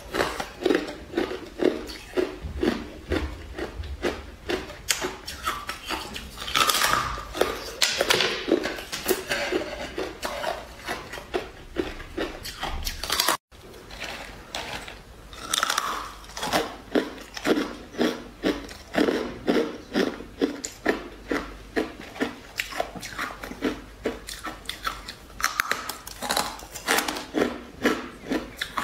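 Biting and chewing hard frozen ice: rapid crunching and crackling, with louder bites snapping off pieces every second or so. There is a brief dropout about halfway through.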